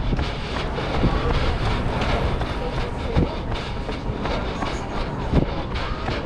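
Wind rumbling on a body-carried action camera's microphone, with knocks about once a second from the runner's footfalls jolting the camera.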